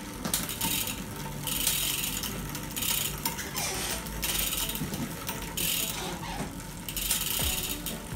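Bicycle freewheel ratcheting in short bursts, about seven in a row with brief gaps, as the cranks and chain are turned by hand on a Birdy 1 folding bike.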